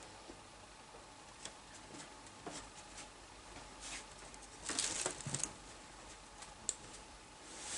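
Faint, scattered soft taps and rustles of a sphynx kitten moving about on a wooden windowsill among artificial flowers, with a busier cluster of rustling about five seconds in and a single sharp click near seven seconds.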